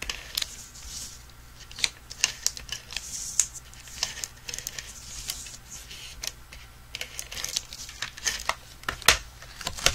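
Tape roller laying adhesive on the back of a cardstock mat in several short, scratchy strokes, with clicks and taps of the paper being handled and pressed down; a sharper knock about nine seconds in.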